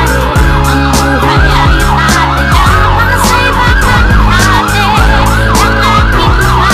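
Electronic emergency-vehicle siren on a fire-and-rescue vehicle in fast yelp mode, its pitch rising and falling about three times a second, with a song's beat underneath.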